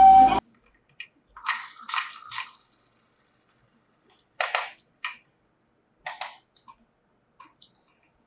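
A toy ambulance's two-tone electronic siren cuts off abruptly just after the start. It is followed by a scattering of about ten sharp plastic clicks and taps, with short quiet gaps between them.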